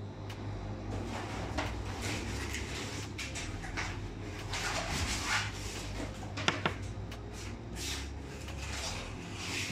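Rustling handling noise from dough balls and a floured metal proofing tray being handled, with two sharp clicks close together a little after halfway, over a steady low hum.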